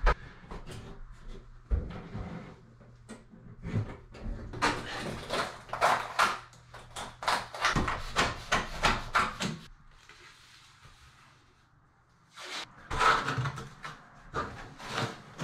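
Irregular scraping, rubbing and crinkling strokes of hands-on floor work: a wet sponge wiped over the plywood subfloor, and a sheet of plastic Ditra XL uncoupling membrane being laid and pressed down. A quieter stretch of about two seconds comes after the middle.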